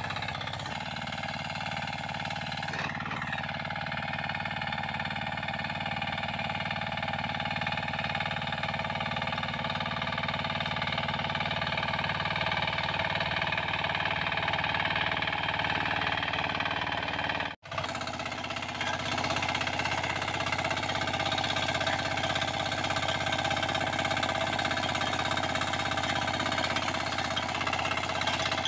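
Small 9 hp walk-behind power tiller engine running steadily under load while its rotary tines churn the soil, with a fast rattling firing beat. The sound breaks off for an instant about two-thirds of the way through, then carries on the same.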